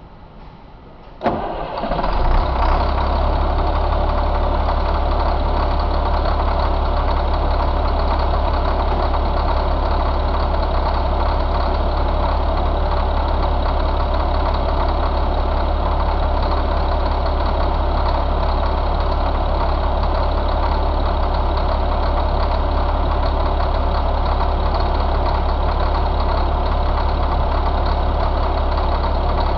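Caterpillar 3126 inline-six diesel engine starting about a second in, then running at a steady idle.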